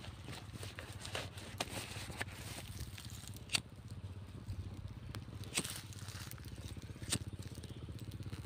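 Dry twigs and leaves crackling and snapping in scattered sharp clicks as someone moves through brush under trees, over a low steady hum.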